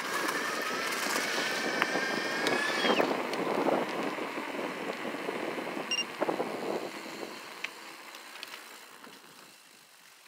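Bafang M600 e-bike mid-drive motor whining under power as the rear tyre is spun in a burnout. The whine rises in pitch and cuts off just under three seconds in, followed by tyre and rolling noise that fades away.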